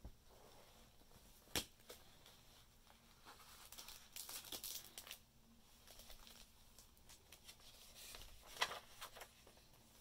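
Faint rustling of paper as the pages of a handmade journal are turned and a paper card is slid out of a page pocket, with a sharp tap about one and a half seconds in.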